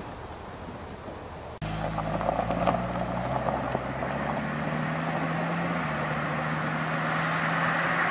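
Faint in-car background, then a sudden cut about a second and a half in to a car engine running with a steady hum, with road noise that grows steadily louder toward the end as another vehicle approaches.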